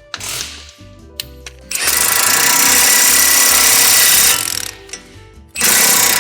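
Impact wrench with a 21 mm socket hammering in bursts: a short one at the start, a long one of about two and a half seconds, then another near the end. It is drawing new wheel studs into the hub through a stud installation tool. Background music plays underneath.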